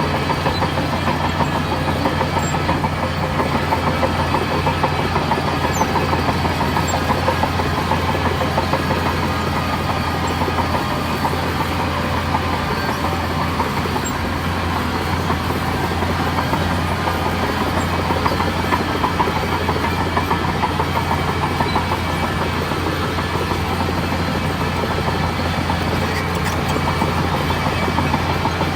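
Heavy diesel engine of a bulldozer running steadily: a continuous, even drone.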